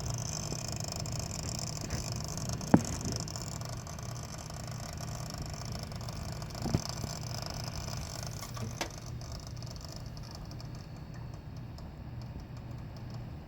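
Asetek 550LC 120 mm liquid CPU cooler making a steady low rattling buzz, a fault the owner suspects may come from air bubbles in the tubes. A few sharp clicks stand out, the loudest about three seconds in.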